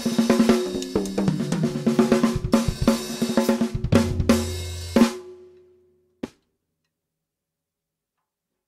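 Drum kit played in a groove around a 12x7 Australian wandoo stave snare whose ringing tone carries through the strikes, with cymbals, hi-hat and bass drum. A fill leads into closing hits with a low boom about five seconds in, which ring out and fade. A single short click follows, then silence.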